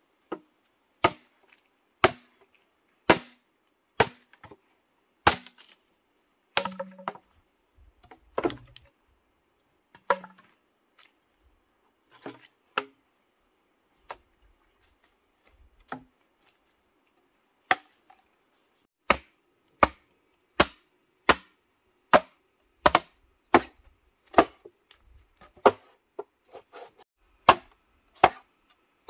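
Repeated sharp chops of a blade striking wood: about one stroke a second at first, then after a pause of scattered strokes, a quicker steady run of chops.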